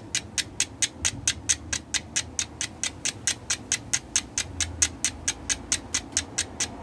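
Old Nordic steel fire striker struck rapidly and evenly against a flint held with char cloth, about four to five sharp scraping clicks a second: flint-and-steel fire lighting, throwing sparks to catch an ember.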